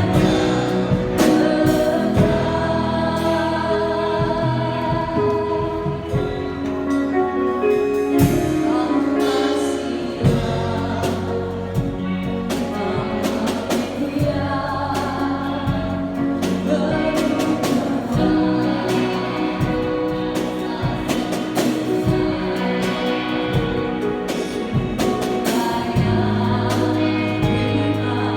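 Choir singing a Christian song over instrumental accompaniment, continuous.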